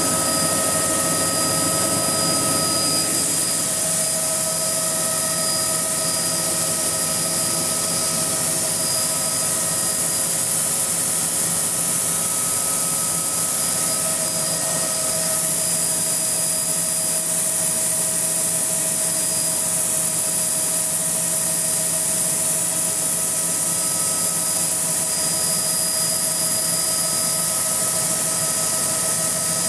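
Helicopter in flight heard from inside the cabin: a steady, loud high hiss with several steady whining tones that hold their pitch.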